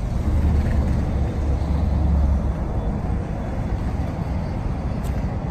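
Road traffic noise: a steady wash of passing vehicles, with a heavier low rumble from a vehicle for the first couple of seconds.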